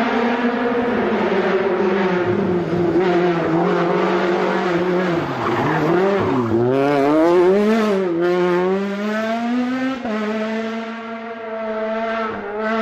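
Rally car engine revving hard, its pitch dipping and climbing several times about five to eight seconds in, then jumping up sharply near ten seconds.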